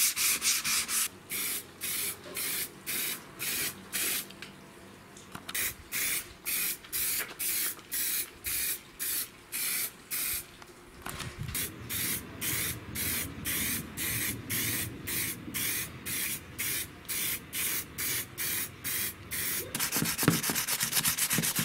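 Sandpaper rubbing by hand over a plastic tool housing, then a long series of short hissing bursts from an aerosol spray-paint can, about two a second with a pause partway through. Near the end, quick sandpaper strokes on an aluminium housing.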